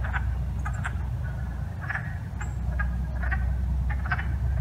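Male wood frogs calling in courtship: short, duck-like "ack" clucks repeated about twice a second, over a steady low rumble.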